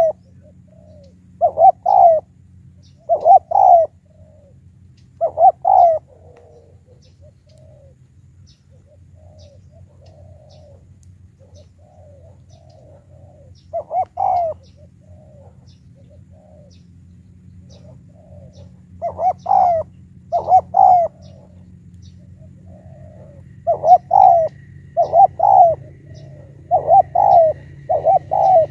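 Spotted doves cooing: loud coos in short groups of two or three notes, repeated every second or two. Fainter coos fill a quieter stretch in the middle before the loud groups come thicker again near the end.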